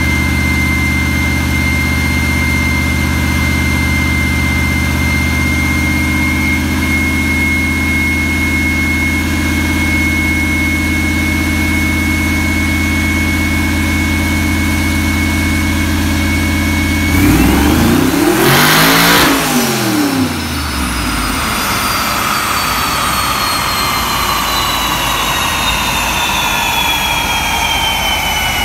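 1967 Buick Skylark's twin-turbo LS3 V8 running at a steady speed on a chassis dyno, with a steady high whine over the engine note. About 17 seconds in it revs up hard for a couple of seconds, then the revs fall away and a long, slowly falling whine follows as it coasts down.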